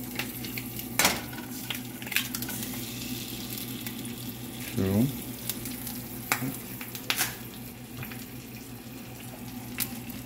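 Two eggs frying in a cast iron skillet, sizzling steadily, with scattered sharp clicks and pops. A brief wordless hum of a man's voice comes about halfway through.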